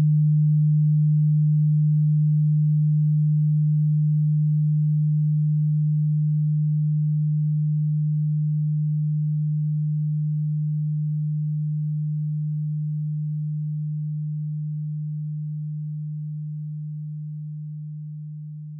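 A single steady low electronic tone, a pure sine-like hum, slowly fading out.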